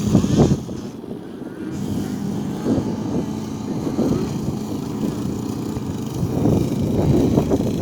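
Small off-road vehicle engine running, its sound swelling and easing.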